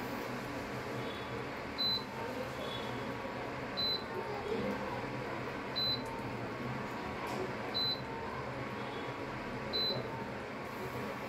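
A short high electronic beep repeating evenly about every two seconds, five times, with a few fainter, slightly lower chirps in between, over a steady background hum and hiss.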